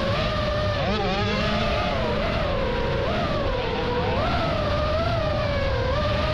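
High-pitched whine of an FPV drone's motors and propellers, its pitch rising and dipping with the throttle, over the engine of a 65cc motocross bike running on the dirt track.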